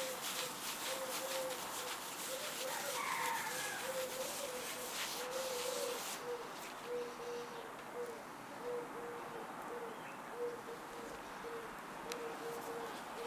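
A gloved hand rubs oil finish over a smooth resin-and-wood tabletop, a soft scratchy wiping that stops about halfway through. Throughout, a dove coos in a steady run of short low notes, about two a second.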